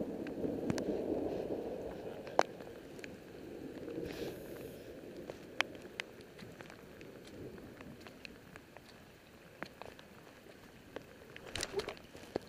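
Footsteps on a soaked lawn with handling clicks from a handheld camera, over a low rushing noise that fades after the first couple of seconds.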